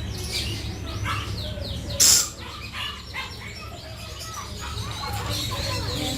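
Many caged birds chirping together in quick, short, falling notes, with one loud, sharp shriek about two seconds in, over a steady low hum.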